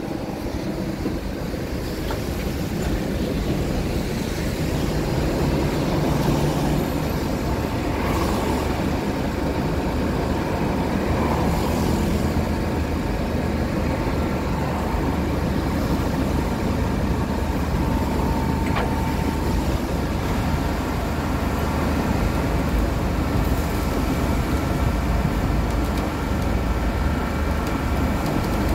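Tow truck's engine running steadily with a low hum, under a continuous even noise.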